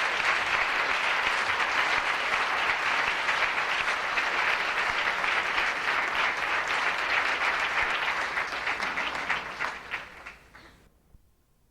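Live concert audience applauding at the end of a song, dense clapping that thins out about eight seconds in and is cut off near the end.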